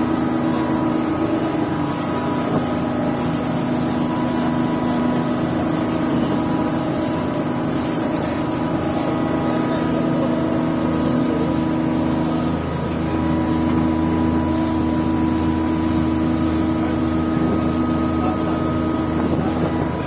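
Fishing charter boat's engine running steadily: an even, unbroken hum made of several steady tones.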